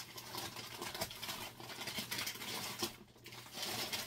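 Busy rustling and light scraping of packages being rummaged through and moved by hand.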